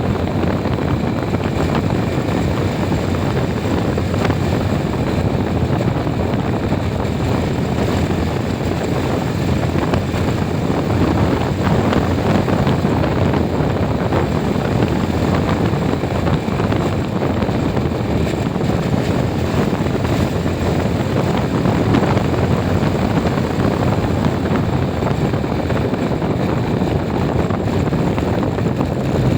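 Steady low rumble of a moving vehicle, with wind noise on the microphone, holding at an even level throughout.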